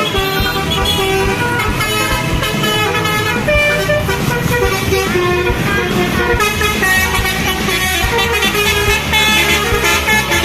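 A bus's basuri musical horn playing a tune of short held notes that change pitch every fraction of a second, over the low running of the bus.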